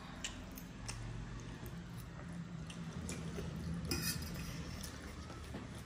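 Occasional light clinks of cutlery against dishes, the clearest near the start and about four seconds in, over a low steady hum.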